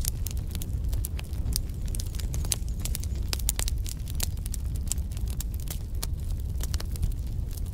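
Wood fire in a fireplace crackling: irregular pops and snaps over a steady low rumble.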